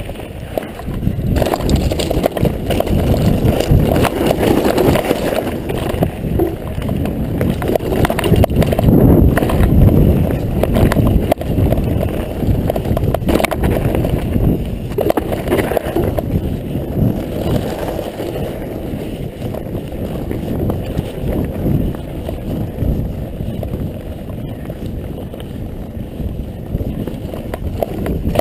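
Mountain bike rolling over a rough trail: a continuous rumble with rapid rattling and knocking from the bike, and wind buffeting the microphone.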